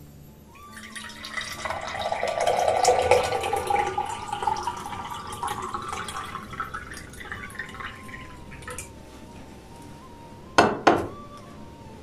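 Liquid poured from a glass kettle into a drinking glass, the pitch of the pour rising as the glass fills, then tailing off. Near the end, two sharp knocks as the kettle is set back down on the stone counter.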